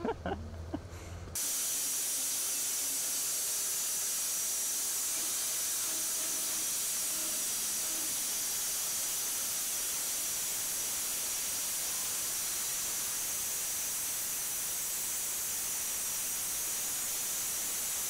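Band sawmill running: a steady, even hiss that starts abruptly about a second in and holds unchanged.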